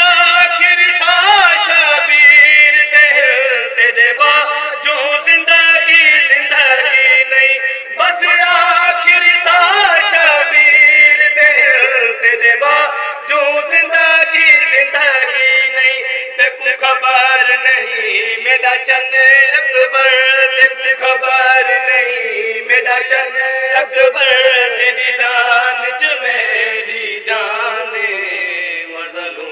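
A group of young men chanting a Muharram noha (Shia mourning lament) together, one lead voice on a microphone with the others singing along. The chanting is loud and continuous and eases off near the end.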